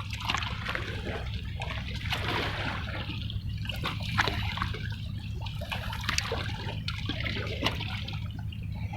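Seawater lapping and splashing against rocks at the water's edge, in uneven small surges, over a steady low hum.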